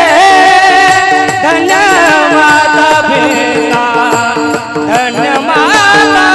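Devotional kirtan singing: a solo voice carries a melody with much bending, ornamented pitch over steady instrumental accompaniment.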